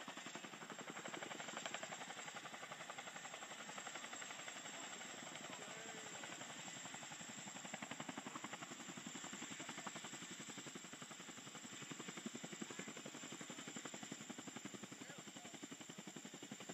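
Helicopter rotor beating steadily, a fast even chop of blade pulses.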